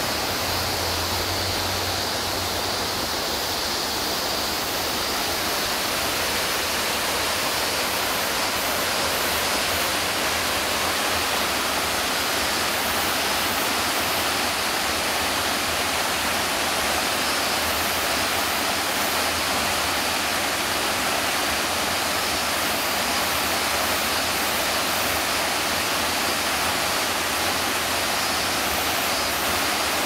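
Waterfall cascading in several channels over stepped rock ledges: a steady, even rush of falling water.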